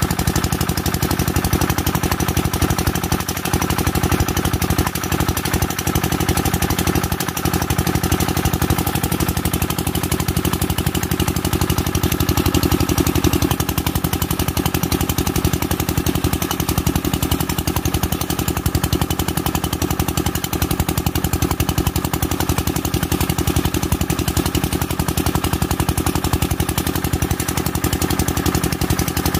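Kirloskar diesel engine running steadily, with a rapid, even firing beat.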